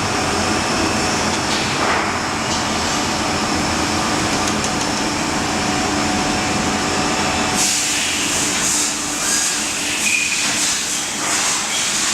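Steady running machine noise with hissing; about eight seconds in, a louder, uneven high hiss joins in pulses.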